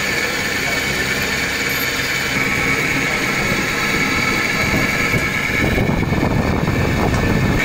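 Steady mechanical drone with a high, even whine. A rougher low rumble joins it about five and a half seconds in.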